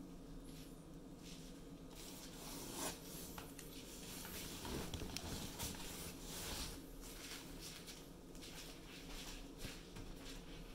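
Faint irregular hissing and crackling of water heating in the glass lower globe of a Hario syphon coffee maker over an alcohol burner, before it boils.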